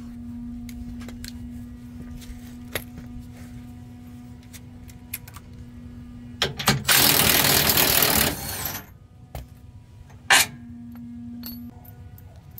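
Cordless impact wrench hammering on a bolt for about two seconds, the loudest sound. Before and after it come light clicks and clinks of tools being handled, and one sharp click.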